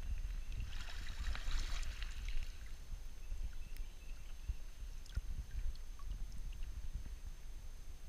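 Shallow stream water sloshing and splashing as a hand reaches through it to the creek bed, with a louder splashy burst about a second in and scattered small clicks. Under it runs a steady low rumble of water moving against the camera held at the surface.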